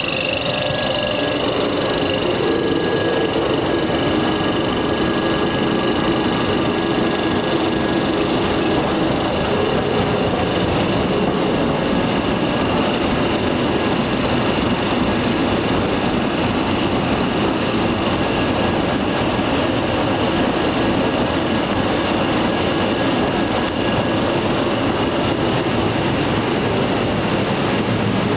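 PP woven-bag pelletizing line running: a loud, steady mechanical din from the extruder's electric drive motor and gearbox and the pellet cutter. A faint high whine is heard for the first several seconds, then fades.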